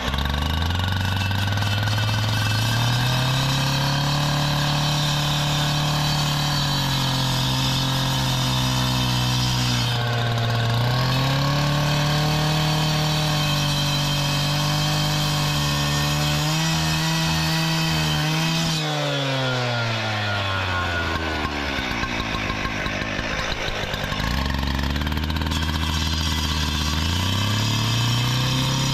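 Gas-powered cut-off saw running at high revs while cutting concrete pavers. It revs up at the start and dips briefly about a third of the way in. About two-thirds through it drops to idle for a few seconds, then revs back up to cutting speed.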